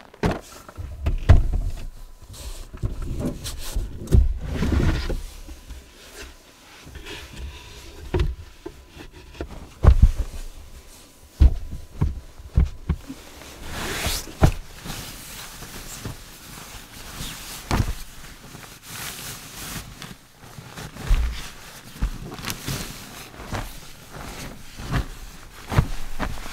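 Handling noise of a person moving about inside a Jeep: irregular thumps and knocks against the interior, mixed with rustling of blankets and fabric as bedding is laid out.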